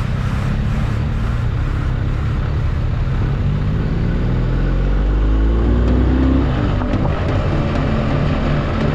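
Vehicle engine running on the move under heavy low wind rumble. The engine note climbs about four seconds in, peaks near six seconds, then falls back.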